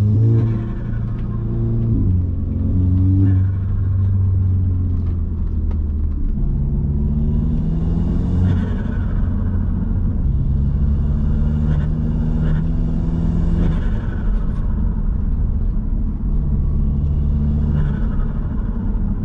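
Audi S3's turbocharged four-cylinder engine revving up and down repeatedly, with short turbo whooshes as the throttle closes; its diverter valve has been removed, which makes the turbo louder on lift-off.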